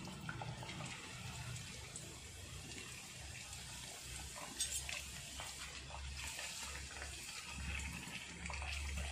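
Puri dough discs deep-frying in a pan of hot oil: a steady crackling sizzle with scattered small pops, as more raw discs are slipped into the oil.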